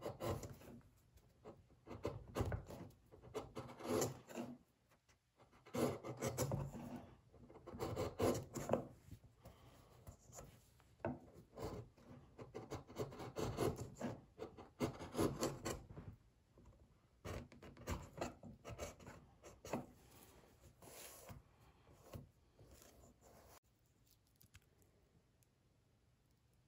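A steel chisel from an Amazon Basics set, pushed by hand to pare a chamfer on the end of a hardwood block, makes repeated uneven scraping strokes as it takes off shavings. The strokes stop near the end.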